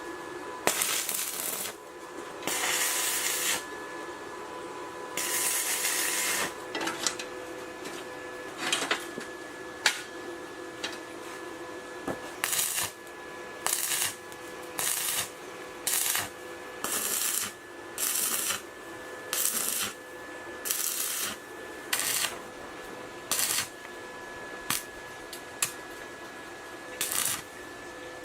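Hand work on metal lathe parts: a long series of short rasping strokes, about one a second in the second half, over a steady hum.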